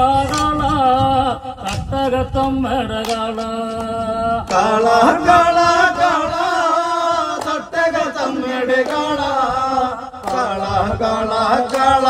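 Men singing a Malayalam folk song (nadan pattu) in a chanting style, with steady beats on shoulder-slung barrel drums.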